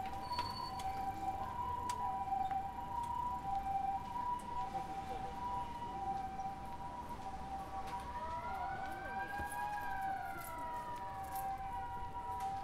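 Emergency vehicle sirens: a two-tone hi-lo siren alternating steadily between two pitches, the Japanese ambulance's 'pii-poo' pattern. A second siren joins about eight seconds in, wailing slowly up and then down.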